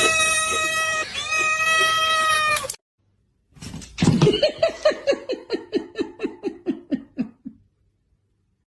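A cat yowling in two long, steady-pitched calls. After a short pause comes a quick run of short calls, about four a second, sliding down in pitch and fading out.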